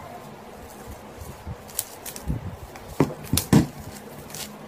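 Plastic cling wrap being handled and pressed down over a pork chop on a chopping board: a few scattered crinkles and light knocks.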